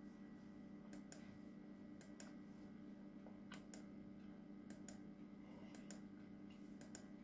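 Faint clicking at a computer as the slides are paged through, about one click a second and often in close pairs, over a low steady hum.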